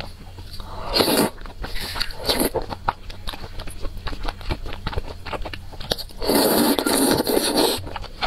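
A person eating wide noodles close to a clip-on microphone: chewing throughout, with many small clicks. Short slurps come about a second in and near two and a half seconds, and a longer slurp lasting about a second and a half comes near the end.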